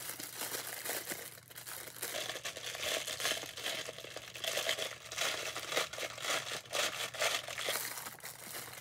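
Plastic packaging crinkling and rustling irregularly as it is handled and opened by hand.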